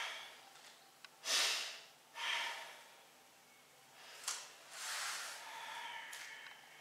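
A karate practitioner's forceful breaths through the nose and mouth during a Shotokan kata: two short strong breaths about one and two seconds in, a brief sharp one past four seconds, and a longer, softer breath after it.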